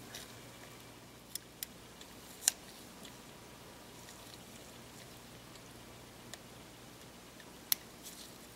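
Small clicks and taps from gloved hands handling the opened body of a Panasonic Lumix ZS19 compact camera during reassembly: about five sharp little clicks, the loudest about two and a half seconds in and near the end, over quiet room tone.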